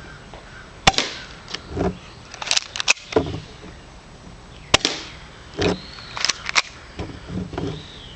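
Cheap spring-powered airsoft pistol firing at a cardboard box: about six sharp snaps, irregularly spaced a second or two apart, with duller knocks between them.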